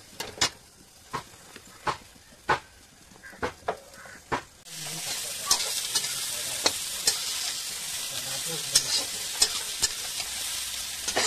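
Metal spatula scraping and clacking against a steel kadhai as sponge gourd flowers, green chillies and garlic are stirred and dry-roasted without oil. Sharp clacks come roughly every half second, and a little under halfway through a steady hiss starts suddenly and carries on under the stirring.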